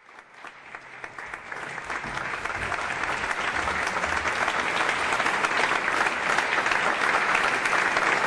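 Concert-hall audience applauding to greet the performers coming on stage, the clapping starting from silence, building over the first few seconds, then holding steady.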